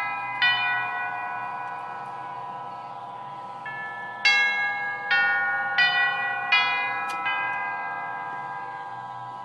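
1929 Revere "Roxbury" tall-case clock by Herschede chiming on its tubular bells: a single struck tube, a pause, then a run of about six tube strikes a little under a second apart. Each note rings on and overlaps the next, and the ringing fades away near the end.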